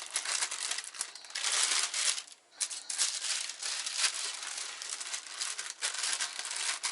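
Paper crinkling and rustling as cookie dough is rolled into a log inside it, a steady crackle with a brief pause about two and a half seconds in.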